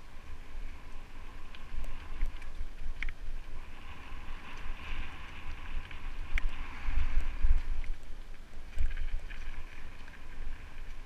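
Mountain bike rolling along a dirt singletrack covered in dry leaves: steady tyre and trail noise with scattered sharp clicks and rattles from the bike over bumps, and low wind buffeting on the microphone.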